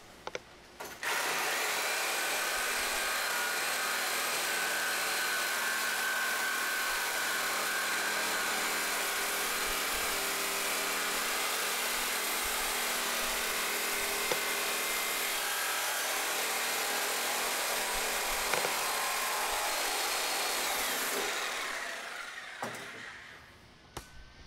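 Reciprocating saw cutting through a stainless steel tabletop, a steady loud rasp of the blade in the sheet metal. It starts about a second in and winds down near the end.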